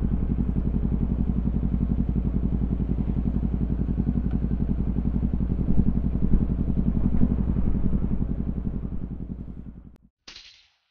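Motorcycle engine idling with a steady, even throb, fading out near the end, followed by a brief hiss.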